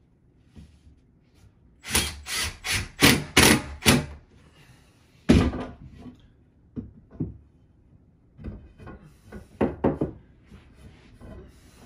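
Cordless impact driver run in a quick string of about six short bursts, driving screws into the closet panel. Then one loud wooden knock and several lighter knocks as a wooden closet rod is fitted into place.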